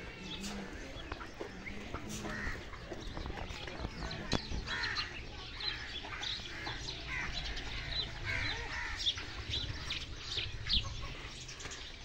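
Birds calling and chirping, many short overlapping calls that grow busier from about four seconds in.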